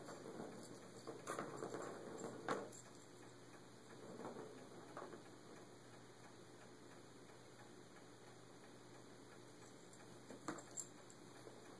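Faint rolling and rattling of the ball in a cat's circular plastic track toy as it is batted, with sharp clicks of the ball knocking the track; quiet in the middle, then a few more clicks near the end.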